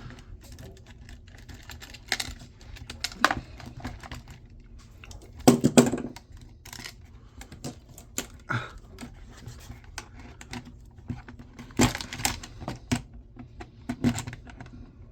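Irregular clicks, taps and scrapes of hand tools, pliers and an adjustable wrench, on the metal and plastic parts of a jump starter pack being taken apart, with a few louder knocks.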